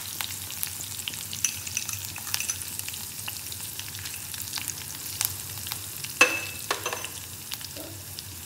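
Tadka of green chilli pieces, curry leaves and whole spices (mustard seeds, cumin, cloves, black pepper) frying in hot ghee in a stainless steel kadai. It makes a steady sizzle with scattered sharp crackles and clicks, the loudest about six seconds in.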